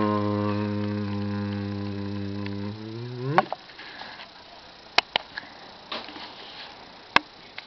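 A man's voice holding one long low note for about three and a half seconds, then sliding up in pitch and breaking off. A few sharp clicks follow.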